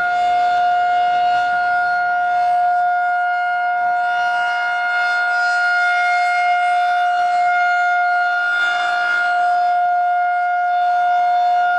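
Emergency warning siren sounding a steady, unwavering tone that holds one pitch throughout.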